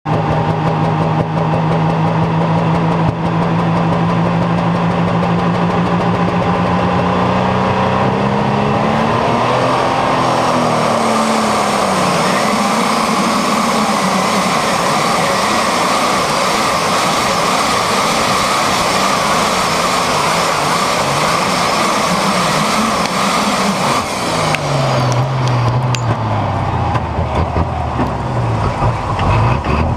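Outlaw-class pulling tractor engine at full throttle through a full pull, heard from on board: a loud, steady high-revving note that swings up in pitch about ten seconds in and wavers. From about 24 seconds in it winds down, falling in pitch as the pull ends.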